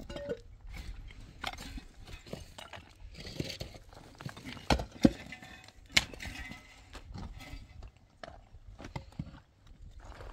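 Irregular knocks and clatter, with a few sharp, louder strikes around the middle.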